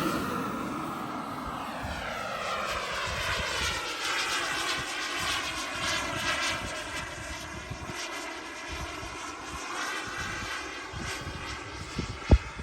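KingTech K85 G2 model jet turbine of an RC jet in flight, whining as the plane passes and draws away. Its pitch falls at the start, then the whine holds steady at a distance. A single sharp thump about 12 seconds in.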